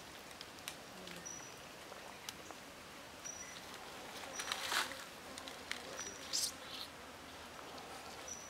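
Raw chicken thigh being worked onto a wooden stick by hand: quiet squelching and rustling, loudest about four and a half seconds in and again a couple of seconds later. A short high chirp repeats every second or two behind it.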